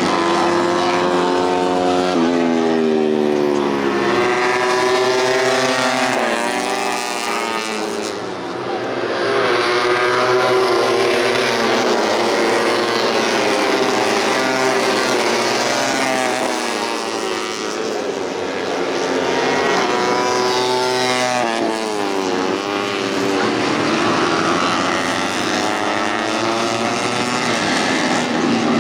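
Several tuned 150cc four-stroke underbone racing motorcycles running hard, their engine notes climbing and dropping again and again as they accelerate and shift gears, with several bikes overlapping.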